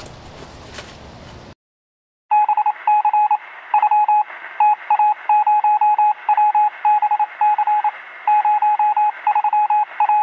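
Electronic beeping on one steady pitch, in quick irregular groups of short beeps, with a thin, telephone-like sound; it starts about two seconds in after a sudden cut to silence.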